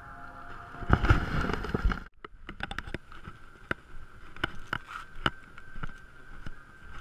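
A plastic bag of ice being handled, crinkling with many sharp, irregular clicks over a steady high hum. It follows a loud burst of rustling noise about a second in.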